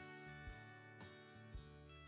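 Faint background music with a steady beat, about two beats a second.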